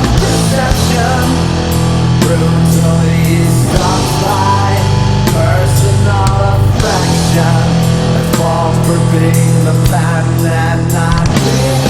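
Doom metal song: heavy guitars and bass holding long low notes that change every few seconds, with drums hitting under a wavering melodic line.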